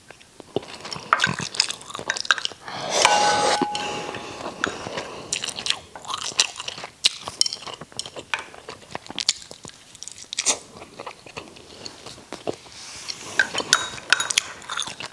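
Chewing and mouth sounds of someone eating steamed rice and braised catfish, with chopsticks clicking and scraping against a ceramic rice bowl in many short, sharp ticks.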